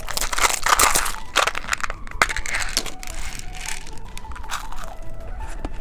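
Close-miked crunching and crackling, heaviest in the first two seconds and then lighter, scattered crackles and clicks.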